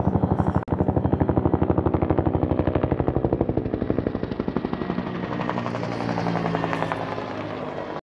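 Bell UH-1 Huey helicopter flying low overhead, its two-bladed main rotor beating out a rapid, even blade slap over the engine. The beat is loudest in the first half and grows softer after about halfway as the helicopter passes.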